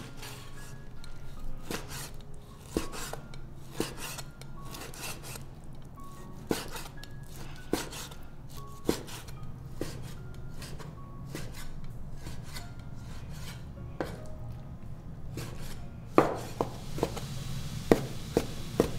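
Kitchen utensils knocking, sharp strokes about a second apart that come thick and fast near the end, over soft background music.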